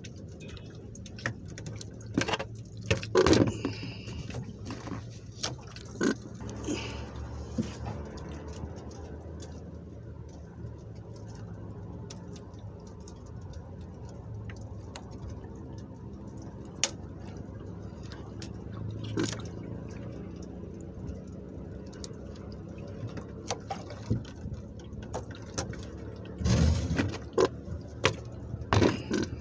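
Knocks, clicks and rustles of hands handling a fishing line and hook close to the microphone, over a steady low hum. The handling noises bunch together near the end.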